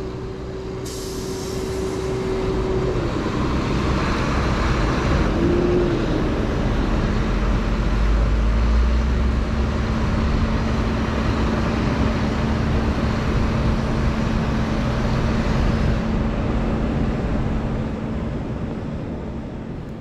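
Heavy diesel farm machinery running steadily at work, with a steady whine for the first few seconds that gives way to a lower steady whine.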